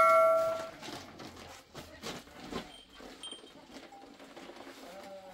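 The ringing of a struck metal object fades out in the first second, followed by faint knocks and shuffling as dough and utensils are handled. Near the end a faint animal call begins.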